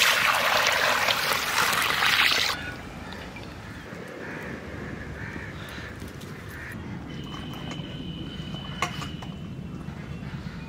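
Water poured into an empty iron kadai, a loud splashing pour that stops about two and a half seconds in. After it a quieter steady low rumble remains, with a faint thin tone for a couple of seconds near the end.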